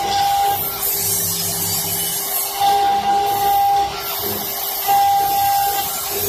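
CNC wood lathe turning a wooden bowl blank, its cutter shaving the spinning wood with a steady rushing noise. A high whistling tone comes and goes about every second or two.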